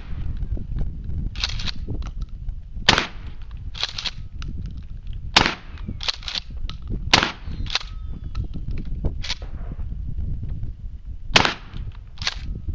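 Mossberg 500 12-gauge pump shotgun firing #4 buckshot: four loud single shots, a few seconds apart. A fainter sharp clack follows about a second after each shot.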